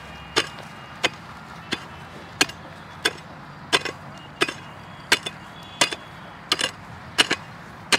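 A pickaxe striking hard, dry ground in steady repeated strokes, about one and a half a second, with a dozen strikes in all. A few strikes carry a quick second knock.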